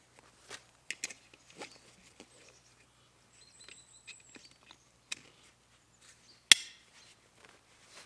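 Hands handling a fabric pouch's webbing straps and plastic side-release buckle: light rustles and small clicks, then one sharp snap about six and a half seconds in as the buckle is clicked shut.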